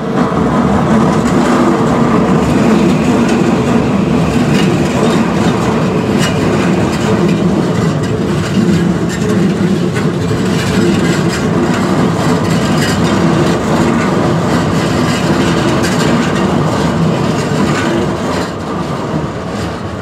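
Toei 5500 series electric train running past at close range: a steady loud rumble of wheels clattering over the rail joints, easing off near the end. The level crossing's warning bell rings behind it.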